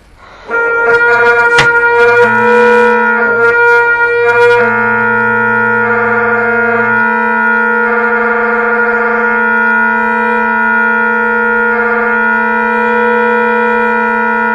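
Great Highland Bagpipe drones with synthetic reeds, blown without the chanter: they strike in about half a second in and hold a steady drone. The lowest note, the bass drone, sounds unsteadily and drops out about halfway through while the tenor drones keep going, a sign its reed is not set right and needs its blade opened.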